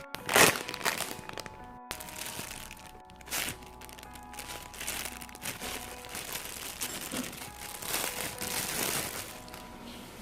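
Plastic packaging crinkling and crackling in several bursts, the loudest about half a second in, over background music.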